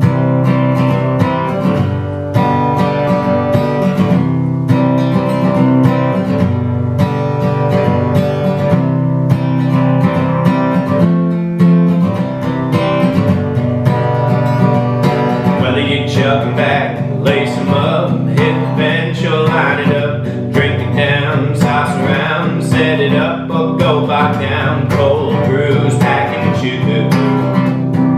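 Country song with strummed acoustic guitar over a steady beat. About halfway through, a wavering lead melody line comes in on top.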